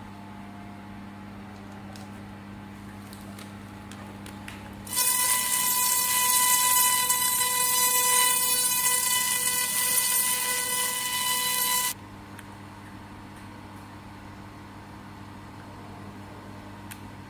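Handheld fiber laser cleaner firing on a rusty steel plate for about seven seconds, starting about five seconds in: a loud hiss with a steady high whine, cutting off suddenly. A low steady machine hum runs beneath it throughout.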